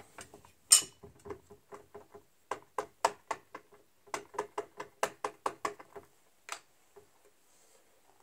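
Light taps and clicks of rubber-stamping supplies being handled on a craft table: one sharper click about three-quarters of a second in, then runs of quick taps, about four a second, until about six seconds in.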